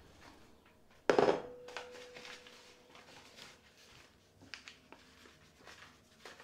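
A ceramic mixing bowl set down on the kitchen counter about a second in: one sharp knock and a clear single ring that fades over about two seconds, followed by faint light clicks and rustling.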